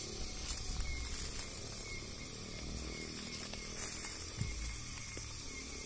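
Outdoor ambience: a low, uneven rumble on the microphone, with faint short high chirps recurring every second or so and a single knock about four and a half seconds in.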